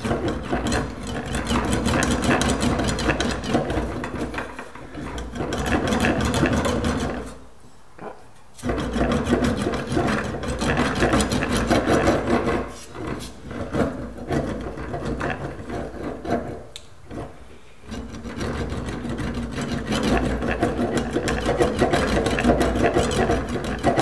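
Sheet-metal repair panel being rolled back and forth through a bench-mounted English wheel: a dense, rapid rasping rattle of metal running between the wheels, stopping briefly three or four times. The panel is being wheeled under light pressure to smooth out imperfections and make an even transition.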